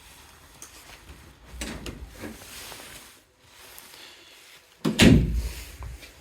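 Door being handled in a house: soft knocks a couple of seconds in, then a loud thump about five seconds in.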